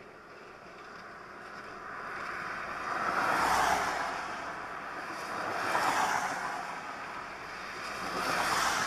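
Strong wind gusting: three gusts swell and fade, about two and a half seconds apart.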